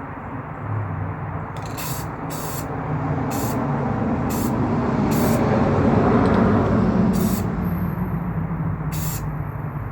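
Aerosol spray paint can hissing in about seven short bursts, spraying brown paint onto a small plastic model part. Beneath it, a low rumble swells to its loudest near the middle and fades.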